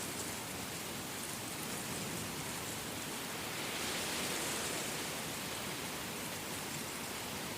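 Steady falling rain, an even hiss that swells slightly about halfway through.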